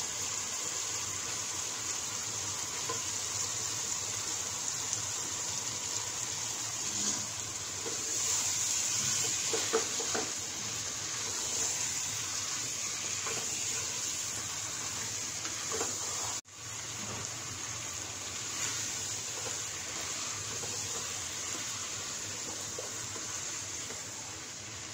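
Raw beef pieces sizzling in oil and fried spice paste in a pot as they are stirred with a wooden spoon: a steady hiss with a few faint scrapes of the spoon. The sound drops out for an instant about two-thirds of the way through.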